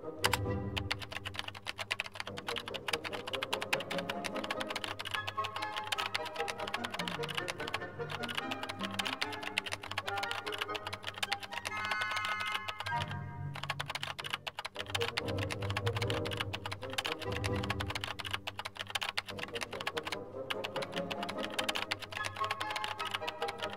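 Rapid computer-keyboard typing, a fast stream of key clicks with a few brief pauses, over background music.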